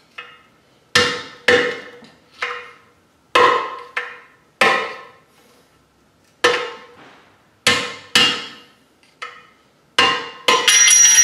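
Hammer blows on metal driving a bearing race out of an NV4500 transmission case: about a dozen sharp, ringing strikes at an uneven pace, with a pause midway. Near the end comes a quick clattering run of hits.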